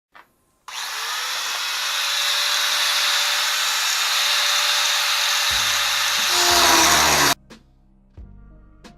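Power tool running with a loud, hissing grinding noise that starts just under a second in and cuts off suddenly about seven seconds in. Music with deep bass notes comes in shortly before it stops and carries on afterwards.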